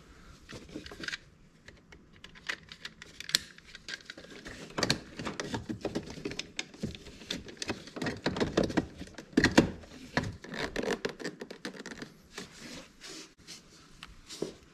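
Irregular clicks, taps and scraping from hands working on car door parts as the interior door handle's release cable is reconnected and the handle fitted back. The clicks are busiest in the middle, with the sharpest one about two thirds of the way through.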